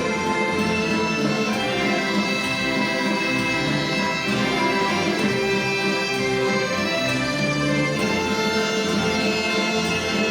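Instrumental music: several instruments playing a waltz together in held, overlapping notes.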